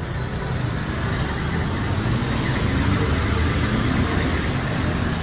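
Road traffic: a motor vehicle's engine running on the street below, swelling to its loudest about three and a half seconds in, then easing off slightly.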